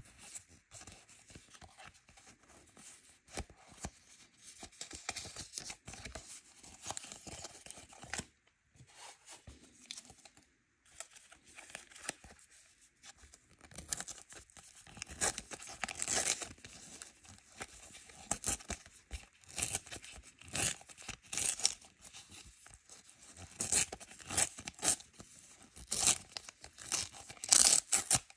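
A Panini foil sticker packet crinkling and being torn open by hand, in short ripping bursts, along with the rustle of stickers being handled. The tearing is loudest in the second half.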